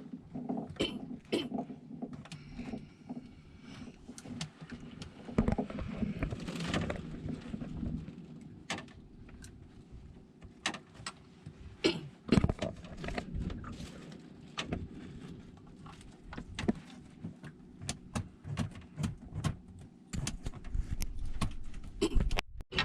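Irregular clicks and knocks over a faint steady low hum.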